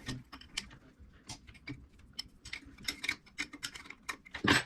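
A run of small, irregular metallic clicks and ticks from hand tools loosening nuts on a two-stroke motorcycle engine's top end, with one louder knock near the end.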